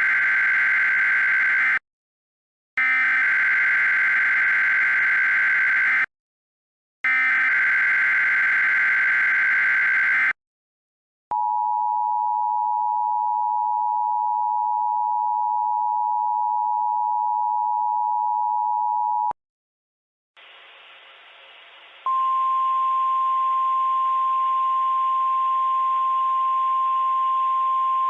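Emergency Alert System activation tones: the SAME digital header plays as three bursts of screeching data with short gaps between them. It is followed by about eight seconds of the steady two-tone EAS attention signal. After a brief silence comes static hiss, and a couple of seconds later a single steady tone joins it.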